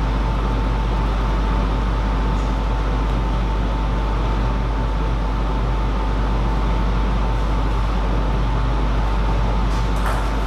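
Steady background noise in a sports hall, with a low hum and a thin, steady high tone. Near the end, sharp table tennis ball strikes begin.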